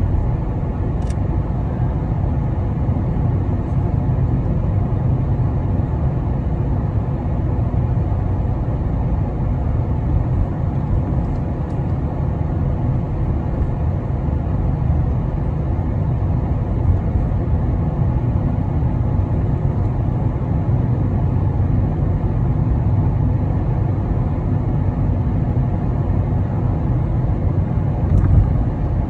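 Steady low rumble of a car driving, heard from inside the cabin: engine and tyre road noise, with a brief louder bump near the end.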